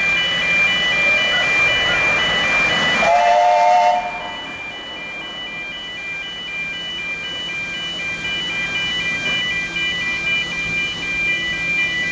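A narrow-gauge steam locomotive's whistle sounds once about three seconds in, a chord of a few close notes lasting about a second. Behind it the level-crossing alarm sounds its pulsing warning tones.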